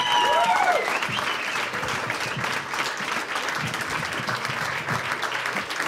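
Studio audience applauding: a dense, steady patter of many hands clapping. A long, high-pitched cheer dies away within the first second.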